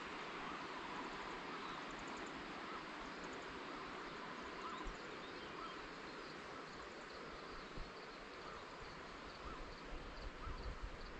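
Steady rush of flowing water with insects chirping in a regular high pulse, the chirping clearest in the second half. A few low bumps come near the end.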